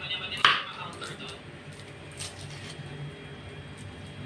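Kitchen knife cutting garlic cloves against a wooden chopping board: one sharp knock about half a second in, then a few light taps about two seconds in.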